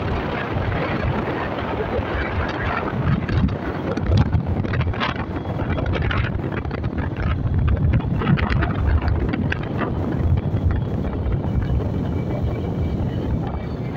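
Wind buffeting the microphone of a phone carried on a moving motorcycle, a steady rushing noise with gusty swells, with the motorcycle's running and road noise underneath.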